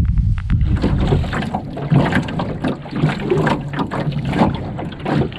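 Low wind rumble on the microphone, then from about a second in a small metal skiff being rowed: oars dipping and splashing and water slapping the hull in an irregular stream.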